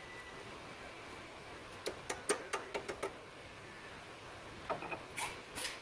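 Metal tools and bolts being handled on a car's front suspension: a quick run of sharp light clicks and taps about two seconds in, and a few more near the end.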